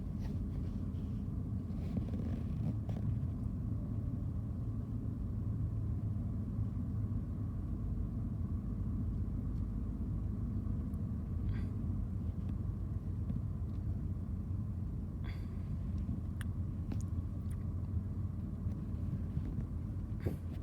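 Steady low rumble of a Ford car on the move, engine and road noise heard from inside the cabin, with a few faint scattered knocks.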